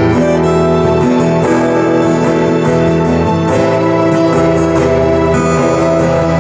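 Music from a CD playing through a repaired Dynaco PAS-3 tube preamplifier, a Dayton DA30 class D amplifier and a pair of Polk Audio R15 bookshelf speakers, during a listening test of the preamp. It plays steadily, with sustained notes and chords.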